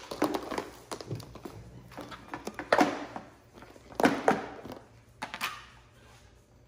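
Crinkling of a plastic bag and clatter of a plastic food container handled on a marble countertop, in about four short crinkly bursts with faint taps between, quieter toward the end.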